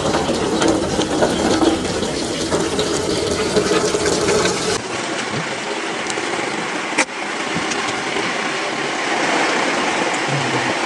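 A steady rush and patter of water with many small ticks. Its low rumble drops out abruptly about five seconds in, and a single sharp click comes about two seconds later.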